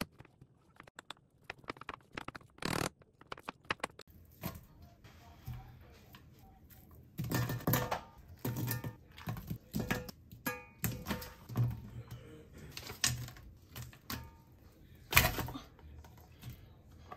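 Metal spoon clicking and scraping against a small glass bowl while stirring a thick chili-paste sauce, then food being put into a cast-iron pan with irregular knocks and handling noises. One loud knock about fifteen seconds in, as a block of tofu is knocked out of its plastic tray into the pan.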